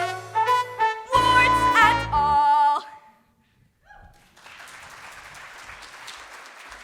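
A stage-musical song with accompaniment ends on a long held sung note about three seconds in. After a brief pause, an audience starts applauding and keeps clapping steadily.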